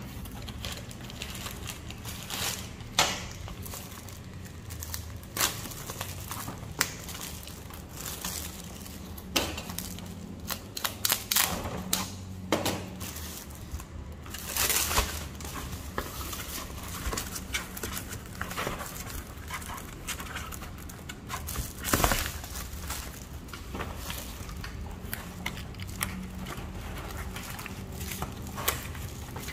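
Plastic packaging film and bags crinkling and rustling as they are pulled off, with scattered taps and knocks from the pegboard panels and their cardboard box being handled. The two loudest rustles come about halfway through and roughly three-quarters of the way in.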